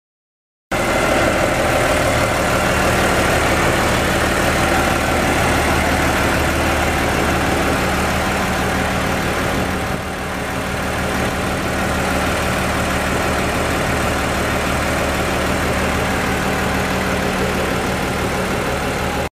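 Komatsu D375A-6 bulldozer's big diesel engine idling steadily, with a broad hiss over the engine note; the sound cuts in abruptly about a second in.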